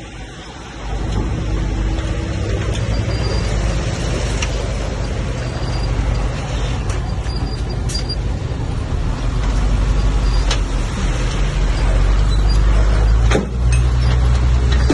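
Komatsu bulldozer's diesel engine running under load, a steady heavy rumble with a few sharp metallic knocks. Near the end the engine note steadies and grows stronger.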